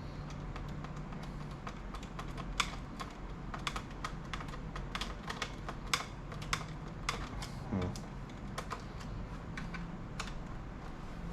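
Irregular small clicks and taps of a screwdriver and screws working in the plastic case of a Lenovo ThinkPad E550 laptop being taken apart, over a low steady hum.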